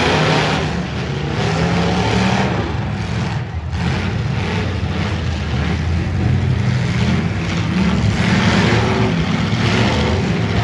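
V8 engines of demolition derby cars revving and running, their pitch rising and falling unevenly.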